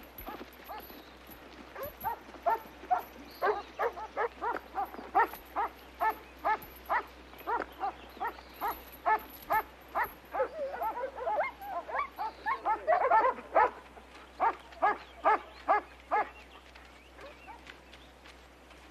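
German shepherd dogs on leashes barking over and over, about two barks a second with some barks overlapping, stopping a few seconds before the end.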